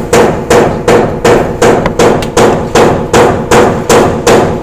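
Steady hammering: loud blows at an even pace of about three a second, each ringing briefly.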